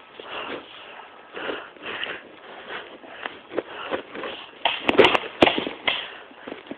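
Footsteps and rustling of a person moving on foot, with a quick cluster of three or four sharp clicks about five seconds in.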